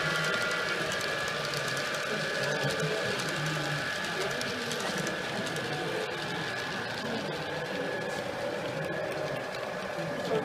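Model train running along the layout track: a steady mechanical whirr from its small electric motor and wheels, with a few light clicks.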